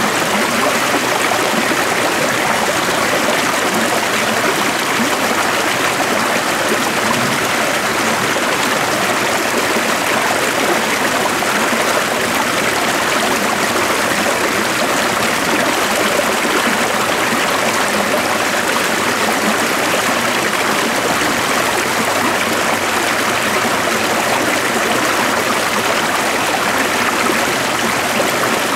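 A stream flowing steadily, an even rush of running water.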